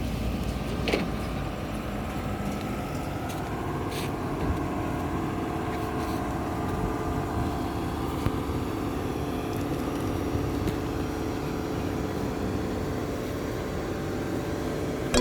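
A vehicle engine running steadily, with a low rumble and a steady hum, broken by a couple of faint clicks.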